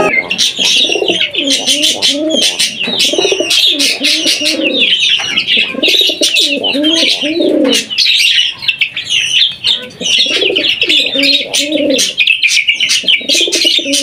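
Fantail pigeon cooing in repeated low, rising-and-falling phrases of one to two seconds, about five times. Budgerigars chirp and chatter without a break over the cooing.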